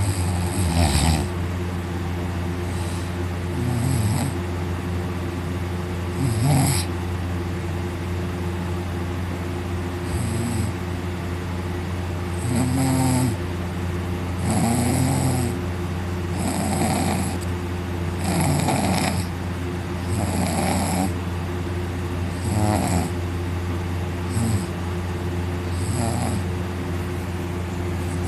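A man snoring loudly in deep sleep, one snore about every two seconds, over a steady low hum.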